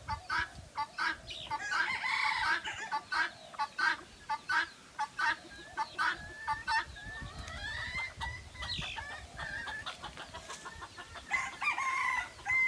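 Chickens in a poultry pen: roosters crowing several times over a run of quick, evenly repeated clucking calls.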